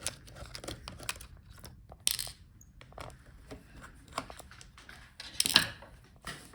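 Small clicks, taps and scrapes of hands handling parts inside an open laptop while lifting out its internal speakers, with two louder scraping rustles, about two seconds in and near the end.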